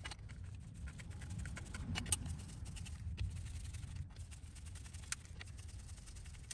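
Faint, scattered clicks and light scraping of hand tools as the transfer-case actuator's screws and mounting bolts are driven in, over a low steady hum.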